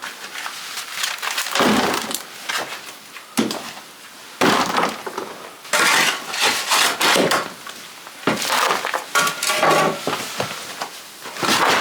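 Shovel digging into stony earth and rubble, with about six separate scraping, crunching strokes and the clink of stones.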